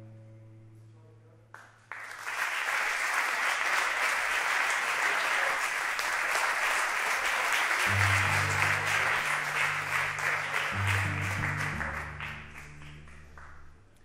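Audience applauding, starting about two seconds in and dying away near the end. About eight seconds in, a cello begins playing low notes beneath the clapping.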